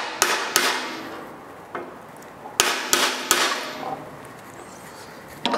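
About seven sharp wood-on-wood knocks, irregularly spaced with three in quick succession about halfway: a wooden block being tapped to drive a tight half-lap miter joint in wooden strips down into place.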